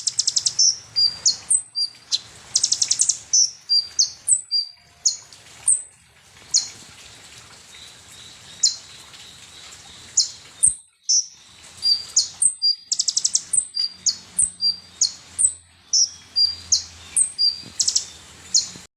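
Olive-backed sunbird (kolibri ninja) singing: a quick run of sharp, high chips and short whistled notes, broken by several rapid trills. The notes thin out for a few seconds in the middle.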